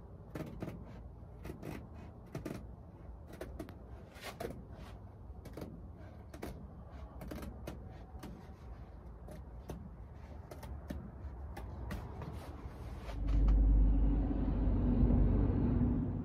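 Hands working at a canvas tent's stove jack in the roof: irregular clicks, taps and knocks as the fitting and its cover are handled. About thirteen seconds in, a loud low rumble starts and runs on.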